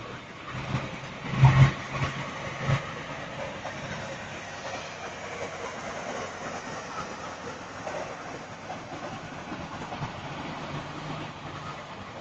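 Semi trucks passing on the street, with loud metallic bangs about a second and a half in and again near three seconds, then the steady rumble of truck traffic.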